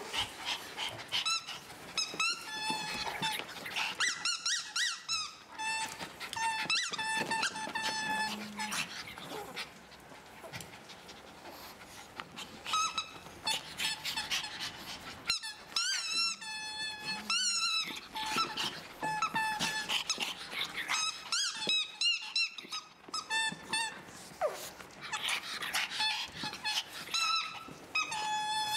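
Dogs at play, with runs of short high-pitched squeaks, several a second, coming in bursts with pauses between.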